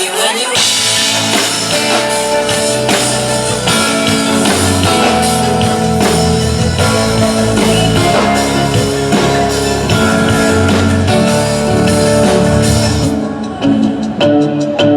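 Amplified pop band music over a PA system: drum kit, guitar and other instruments playing with some singing. About two seconds before the end the cymbals and bright top drop out, leaving mainly drum hits and lower notes.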